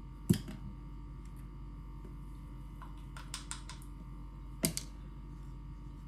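Small plastic supplement scoops clicking and tapping against the tubs and the counter. There is a sharp click just after the start, a few light taps around three seconds in, and another sharp click near five seconds, over a low steady hum.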